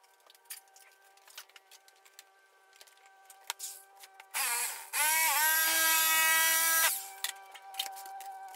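Handheld power shear cutting sheet steel: the motor starts about four seconds in, stops briefly, then runs with a steady whine for about two seconds, its pitch dipping once, before stopping. Light clicks and knocks of the tool and sheet being handled come before and after.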